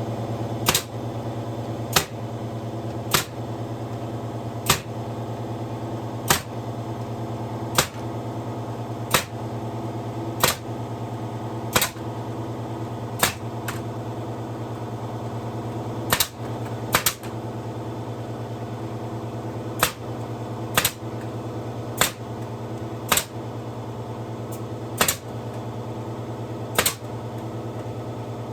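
Pneumatic brad nailer firing about twenty sharp shots, roughly one a second with some in quick pairs, over the steady hum of an old air compressor running.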